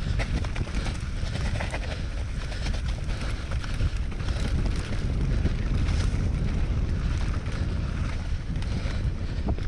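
Mountain bike descending fast over dirt singletrack: a steady rumble of wind buffeting the helmet or chest camera's microphone, with many quick clicks and rattles from the tyres and bike over roots and ruts.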